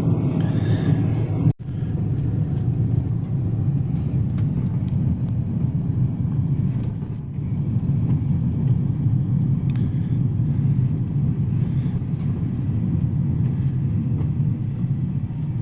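Steady road and engine rumble heard from inside a moving car's cabin, with a brief drop-out about a second and a half in.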